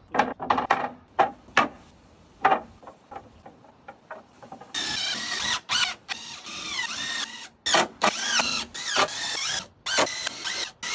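A few sharp knocks, then a power drill driving screws in short runs, its pitch dropping as it slows, starting and stopping several times.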